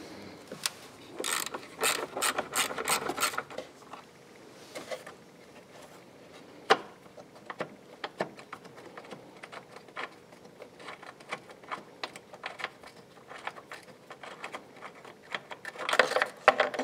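Socket ratchet clicking as it loosens a car battery's hold-down bolt through a 13 mm socket on an extension. A quick run of clicks comes in the first few seconds, then slower, scattered clicks, with a brief rustle near the end.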